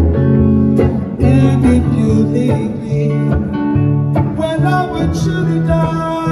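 Acoustic guitar strumming chords in a steady rhythm, with a voice singing over it.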